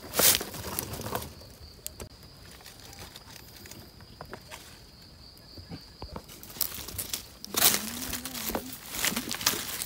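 Crackling, rustling bursts of movement through dry forest leaf litter and undergrowth, at the start and again in the second half. In the quieter middle stretch a faint, steady, high-pitched insect tone can be heard.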